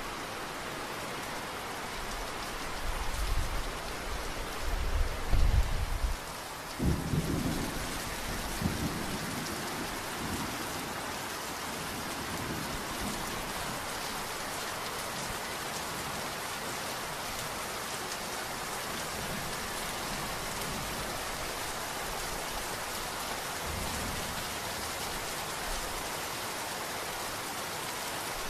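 Steady heavy rain with thunder: a low rolling rumble builds from about three seconds in, a sharper clap comes near seven seconds and dies away within a few seconds, and the rain goes on evenly after it.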